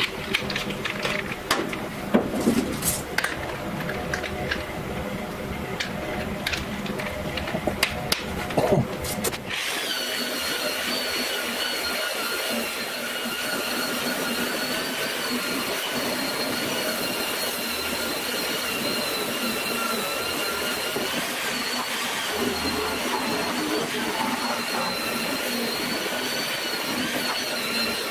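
Knocks and clicks of the tool and disc being handled. About nine seconds in, an electric rotary sander fitted with a purple abrasive stripping disc starts a steady whine that wavers slightly as it grinds the coating off a steel car bonnet.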